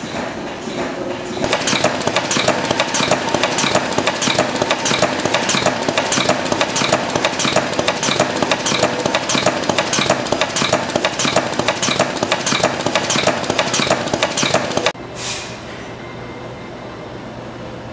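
Machinery clattering in an even rhythm of sharp metallic clacks, about three a second, over a steady hum, which cuts off abruptly near the end and gives way to a brief falling whoosh and a lower steady hum.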